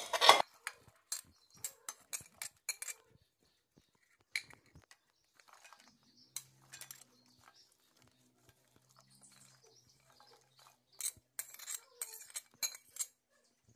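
Steel spoon clinking and scraping against a ceramic plate and the rim of an aluminium pressure cooker as cut vegetables are pushed off the plate and drop in, in scattered sharp clicks, with a cluster near the start and another near the end.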